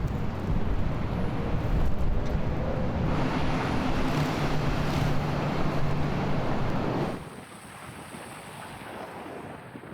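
Strong blizzard wind blowing on the microphone, with a low steady hum in the middle. About seven seconds in it cuts to a much quieter, thinner wind.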